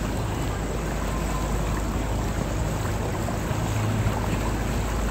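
River tour boat under way: a steady low motor hum with water noise.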